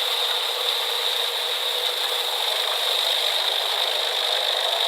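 Steady mechanical noise: an even hiss with a faint high whine and nothing deep, unchanging throughout.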